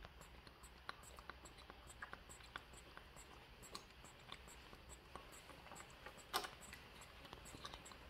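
Faint, irregular small clicks and slurps from monkeys sucking smoothie through plastic straws, with one sharper click a little after six seconds in.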